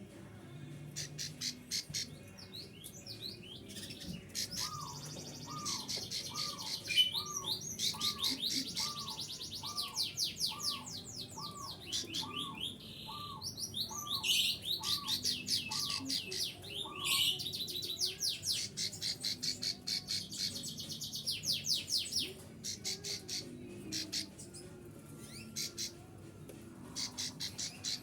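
Songbird chirping and trilling in quick high runs. For the first half or so this is paired with a repeated lower call about once a second, about fourteen times.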